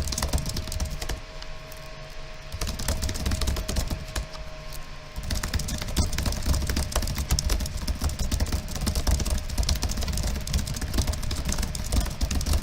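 Fast, continuous typing on a computer keyboard: a rapid run of key clicks with no pauses.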